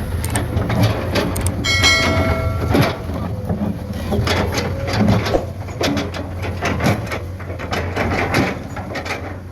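Komatsu PC210 hydraulic excavator at work: a steady low engine drone with repeated clanks and knocks, and a brief high-pitched squeal about two seconds in.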